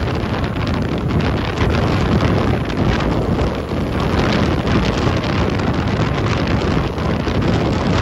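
Strong wind buffeting the microphone, over small waves breaking on a shingle beach.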